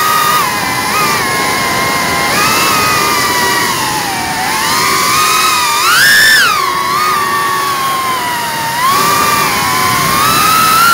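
FPV quadcopter's brushless motors whining, several close tones gliding up and down with the throttle, with a sharp rise about six seconds in before dropping back. A steady rush of propeller and air noise runs underneath.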